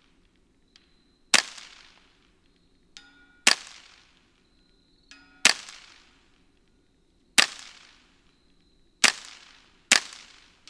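Six suppressed shots from a Fletcher Rifle Works Open Top Takedown semi-auto .22 rifle fitted with an Otter Creek Labs titanium suppressor, really quiet. Each is a sharp crack that dies away quickly, coming roughly every two seconds, with the last two closer together.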